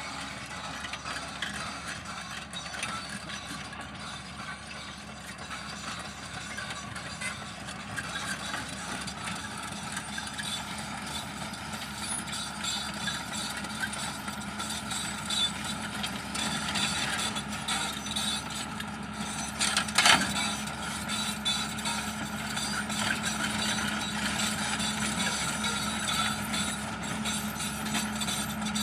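Large excavator's diesel engine running steadily under load, with a sharp metallic clank about two-thirds of the way through.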